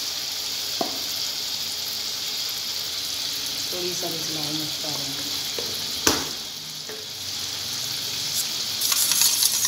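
Steady sizzling hiss, with one sharp knock about six seconds in as red chili powder is tipped from a spoon into a steel bowl of raw eggs.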